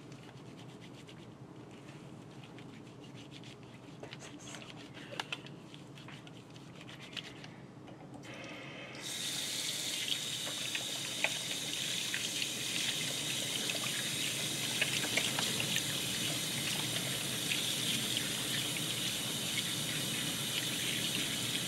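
A kitchen faucet's stream running onto hands being washed in a stainless steel sink, a steady splashing hiss that starts suddenly about nine seconds in. Before it, only a few faint clicks.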